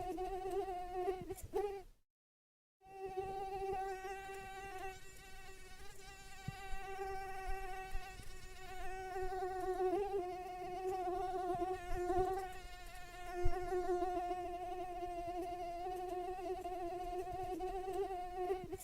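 Mosquito whine: a steady, slightly wavering high buzz from its beating wings. It cuts out completely for under a second about two seconds in, then resumes.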